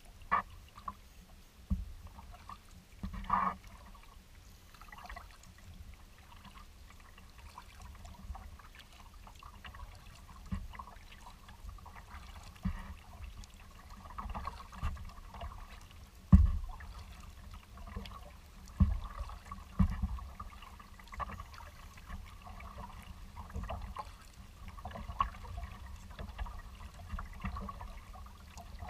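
Kayak paddling: water trickles and splashes off the paddle blades with each stroke. There are scattered low thumps, the loudest about sixteen seconds in.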